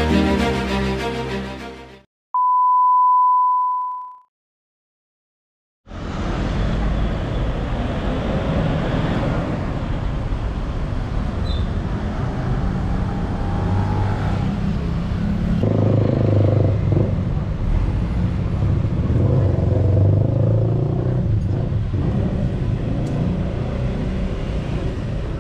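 Theme music fades out, then a single steady beep tone sounds for about two seconds, followed by a short silence. Street traffic ambience then comes in and runs steadily, with a car driving past around the middle.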